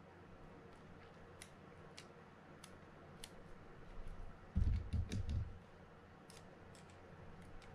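Light, scattered clicks of small plastic and metal parts and tools being handled while a Mitchell 302 spinning reel is put back together, with a dull low bump of handling about halfway that is the loudest sound.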